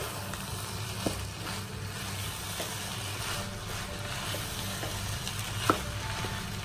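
Wooden spatula stirring a thick koottu curry of chickpeas, raw banana, yam and roasted coconut in a hot nonstick wok, with a steady sizzle. The spatula clicks against the pan about a second in and again, more sharply, near the end.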